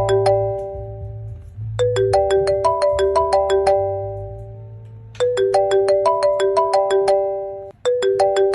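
A phone ringtone ringing for a call: a short melody of quick plucked notes that repeats about every three and a half seconds, with a low hum underneath. Near the end the melody breaks off abruptly and starts over.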